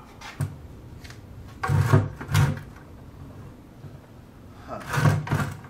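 Plastic support bracket knocking and scraping as it is worked off the lower tabs of a stock intercooler. There is a short knock, then two louder clunks about two seconds in, and another pair near the end.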